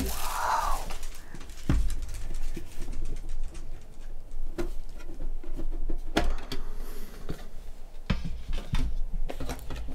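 Hands handling and opening a metal Pokémon card tin: scattered clicks, knocks and low thumps of the tin and its lid against the desk at irregular intervals.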